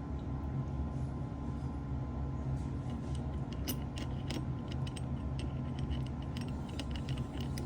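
A steady low hum, with a scatter of light, sharp clicks and metallic taps starting about two and a half seconds in and continuing irregularly.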